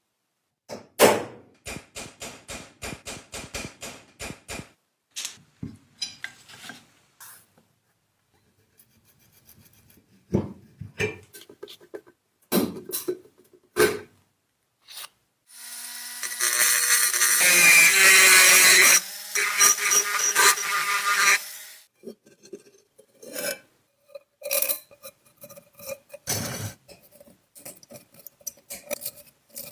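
Hand work on the parts of an old coffee mill: scattered clicks, taps and scraping. In the middle is a steady noisy stretch lasting about six seconds.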